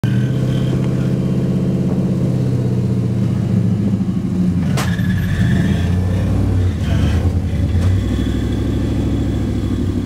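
Dodge Power Wagon rock crawler's Magnum 360 V8 engine running under load while crawling up a rock ledge, its pitch shifting as the throttle changes. A single sharp knock comes about five seconds in.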